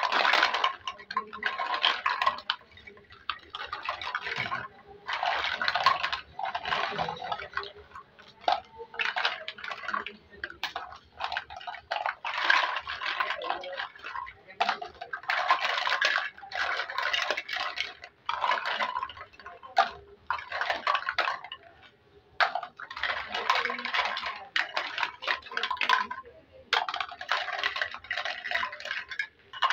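Plastic toy fruit and vegetables being handled and cut, making a series of short scratchy rasps, each about a second long, with brief pauses between them.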